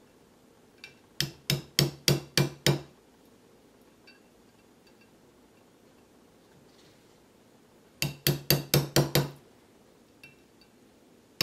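Small hammer tapping a steel punch to drive the extractor pin of a Browning Hi-Power slide back flush, metal on metal. A run of six quick light taps comes about a second in, at about four a second, and another run of six comes about eight seconds in.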